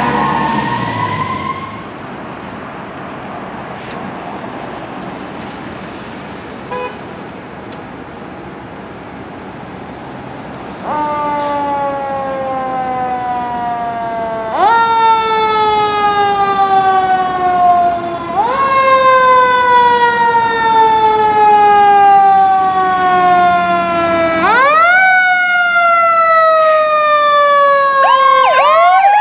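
Fire engine siren: after a quieter stretch of engine and street noise, it starts about eleven seconds in. It winds up sharply and slides slowly down in pitch, over and over about every four seconds, getting louder as the engine pulls out, with a quick wind-up again near the end.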